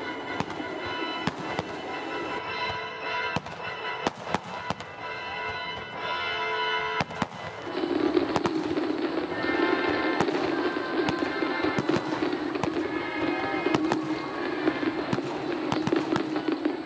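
Aerial fireworks shells bursting in rapid, irregular succession, many sharp bangs and crackles overlapping, with music playing underneath that grows louder about halfway through.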